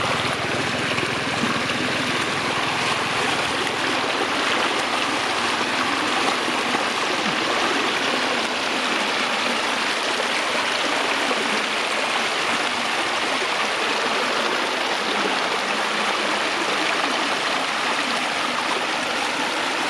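Floodwater running steadily: a continuous, even sound of flowing water.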